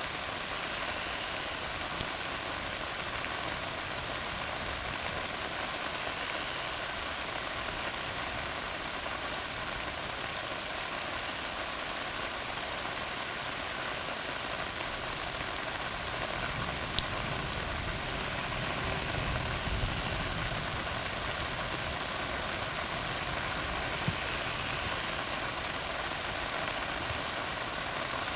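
Steady rain falling on a tar road, with now and then a single sharp drop tick. A low rumble swells briefly about two-thirds of the way through.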